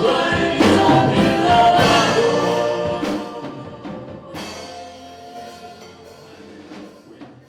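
Gospel worship song: choir singing over drums, fading out steadily from about three seconds in until it ends.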